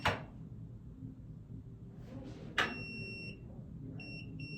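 Arduino alarm clock's piezo buzzer sounding at a high pitch. There is a sharp click, then after a pause another click and one longer beep, then quick short beeps about three a second.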